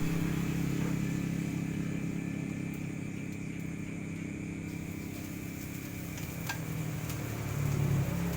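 An engine running steadily with a low hum, rising a little in pitch and loudness near the end.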